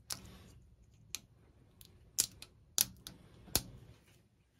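Sharp, irregular clicks and light taps, about five in all, as furnace wires and their insulated spade connectors are handled. The loudest, about three and a half seconds in, has a dull knock to it.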